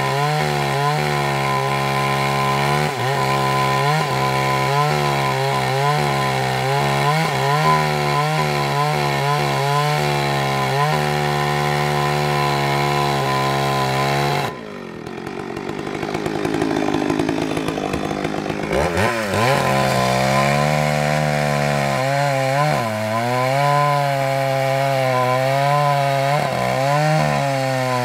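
Petrol chainsaw cutting through a log, the engine at high speed with its pitch wavering as the chain bites into the wood. About halfway through the sound drops briefly, then climbs back up over a few seconds and carries on cutting.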